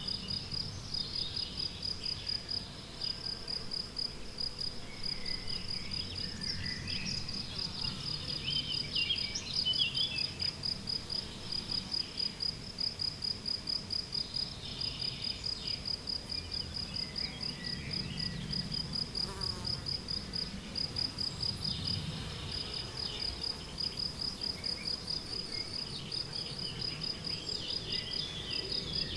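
A cricket chirping steadily in an even, unbroken run of rapid high chirps, with several songbirds singing in the background.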